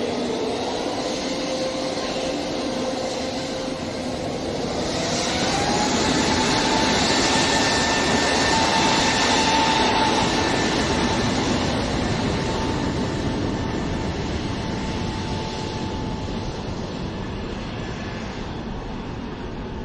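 Airbus A321neo's twin jet engines running as it rolls along the runway. About five seconds in, the whine rises in pitch and grows louder as the engines spool up for the take-off roll. It then slowly fades as the aircraft moves away.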